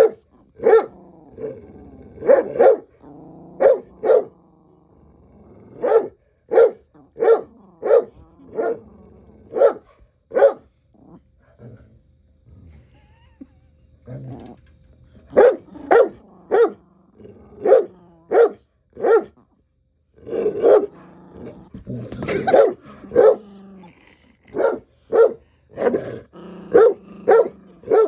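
Dogs play-fighting: runs of short, sharp barks mixed with growling, a quieter few seconds near the middle, then more barking with a longer stretch of growling.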